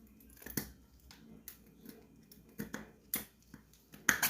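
Small metal clicks and light scrapes from fitting a piston into the cylinder sleeve of a Honda CG 125 engine's cylinder kit: a handful of separate sharp clicks, the loudest near the end.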